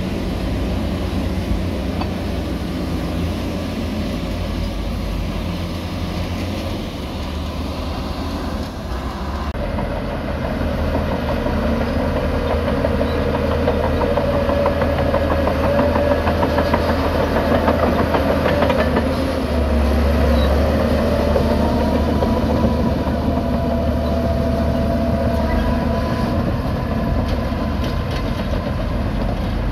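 Diesel dump truck engine running steadily as it tips its load. About nine seconds in, the sound changes to a Shantui DH17 C2 bulldozer's diesel engine working under load, with rattling, clanking steel tracks as it pushes dirt.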